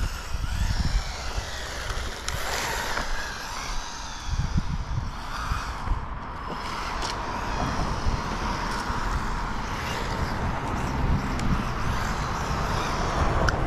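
Electric motor of an MJX Hyper Go 1/14-scale RC rally car whining, rising and falling in pitch, with its tyres running over rough asphalt, and wind rumbling on the microphone.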